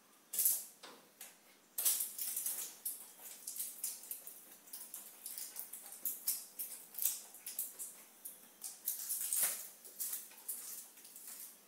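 Floor being cleaned on a tiled floor: irregular swishing strokes, several a second, with a loud stroke about half a second in and another burst of loud strokes about nine seconds in.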